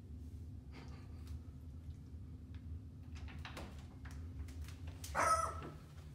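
A dog barks once, short and loud, about five seconds in, over a low steady hum. A few soft clicks come before it as a bedroom door is opened.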